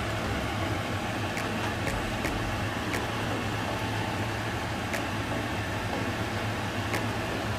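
Steady fan hum and hiss over a hot pan of beef and onions, with a few short sharp sizzle pops as juice is poured in.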